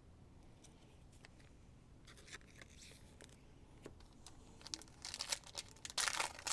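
Trading card pack wrapper crinkling and tearing, preceded by a few light clicks; the crinkling grows louder near the end.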